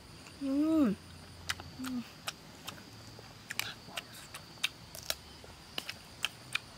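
A short hummed "mmm" of a person eating, rising then falling in pitch about half a second in, with a brief lower hum a second later; then irregular sharp clicks and crunches of chewing roast chicken and raw cucumber.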